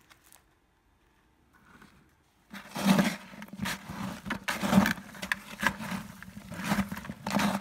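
A gloved hand mixing wet, gritty homemade high-temperature cement in a bucket: irregular crunching and scraping strokes, starting about two and a half seconds in after a near-silent start.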